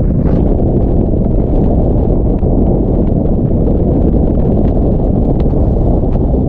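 Wind rushing over the microphone of a paraglider in flight: a steady, loud, low buffeting.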